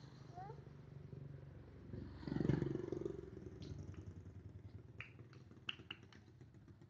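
A low, steady engine hum, with a motor vehicle passing and swelling loudest about two and a half seconds in. A few sharp clicks come near the end.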